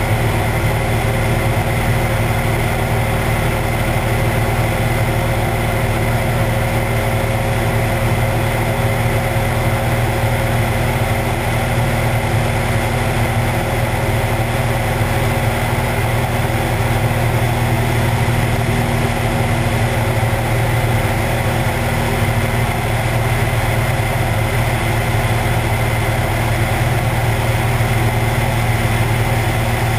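Cessna 172's piston engine and propeller running steadily in cruise flight. The note holds constant, with rushing airflow over the camera, which is mounted outside the cabin.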